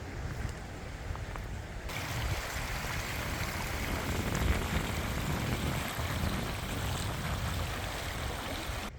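Running water, a steady rushing that comes in suddenly about two seconds in and cuts off just before the end, with wind rumbling on the microphone.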